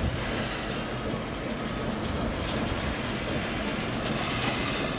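GWR King-class locomotive 6023 rolling slowly along the rails while being shunted, steel wheels squealing on the rail with a thin high squeal that comes and goes over a steady rumble.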